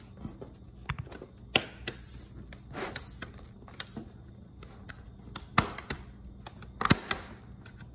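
LG Gram laptop's bottom casing snapping into place as it is pressed down along its edges: several separate sharp clicks a second or more apart, the loudest about a second and a half in and twice near the end.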